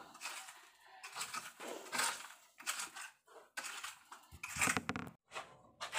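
Digging in packed soil and broken rubble: a tool scraping and crunching into the dirt in irregular strokes, with a heavier scrape about four and a half seconds in.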